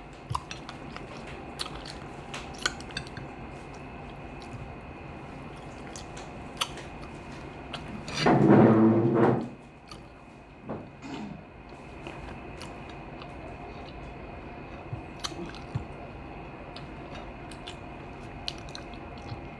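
Close-up chewing and lip-smacking with scattered small clicks, and one loud, low burp about eight seconds in, lasting over a second.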